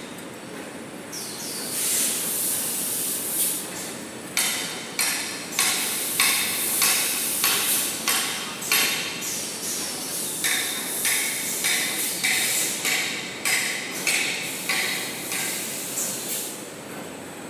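Toilet paper production line machinery running in a steady din, with a rhythmic clatter of sharp strokes about twice a second starting about four seconds in.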